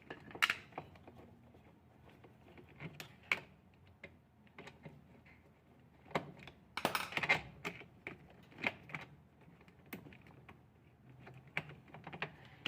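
Phillips screwdriver backing out the screws of a washing machine's shift actuator and the loosened part being handled: scattered small clicks and ticks, with a short burst of louder clatter about seven seconds in.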